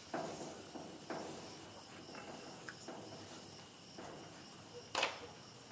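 Crickets chirping steadily at night, with a few soft knocks and a short rushing noise about five seconds in.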